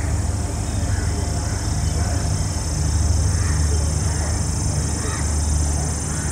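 WDP4D (EMD GT46PAC) diesel locomotive's two-stroke 16-cylinder engine running with a steady low hum, under a constant high hiss.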